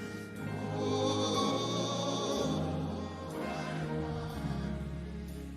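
Live worship music: a congregation singing held notes in chorus over keyboard and bass, the bass moving to a new note every second or two.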